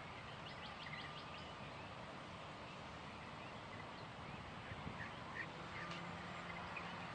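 Quiet background ambience: a steady faint hiss with a few faint, short bird chirps.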